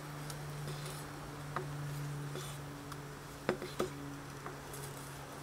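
A knife cutting bratwurst into bite-size pieces, with a few sharp taps on the cutting board, over a steady low buzzing hum.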